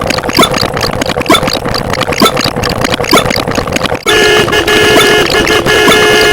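A rhythmic beat of sharp clicks, about two a second, over a faint steady tone. About four seconds in, a loud sustained car-horn honk cuts in as a sound effect.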